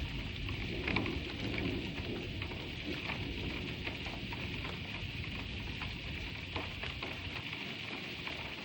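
Steady rain falling during a thunderstorm: an even hiss with scattered sharper drop taps.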